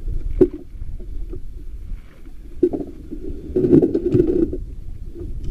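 Water sloshing and slapping against the hull of a small boat at sea, with a sharp knock on the boat about half a second in and a louder stretch of splashing and knocking around the fourth second, over a steady low wind rumble on the microphone.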